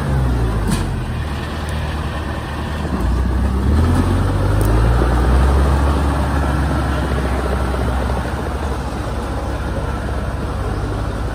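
Engine of a loaded tracked rice carrier running as the carrier drives along a dirt track, revving up about three seconds in.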